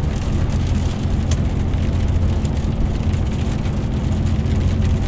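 Steady in-cab sound of a DAF truck on the move: the diesel engine drones low and even under a constant hiss of tyres on a snow-covered road.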